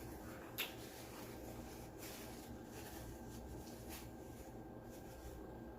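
Faint chewing and mouth sounds of someone eating a burger, with a few soft clicks.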